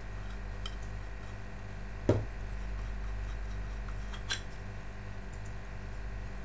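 Hard plastic fountain-nozzle parts clicking and knocking as they are handled and unscrewed by hand, with a sharper knock about two seconds in and a lighter click a couple of seconds later.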